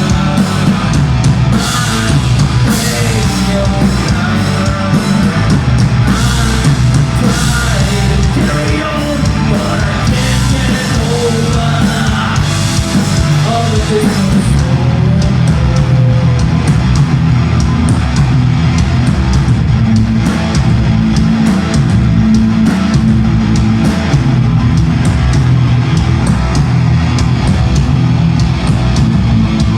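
Live heavy metal band playing loud: distorted guitars, bass and drum kit, with singing or yelled vocals in roughly the first half. After about 15 s the voice drops out and the band carries on.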